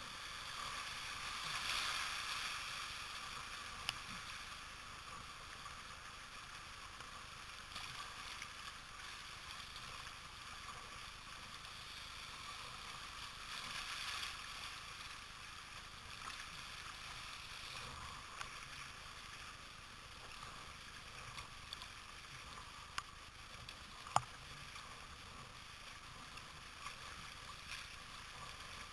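Whitewater of a river rapid rushing around a kayak: a steady hiss that swells louder about two seconds in and again around fourteen seconds, with a few sharp clicks.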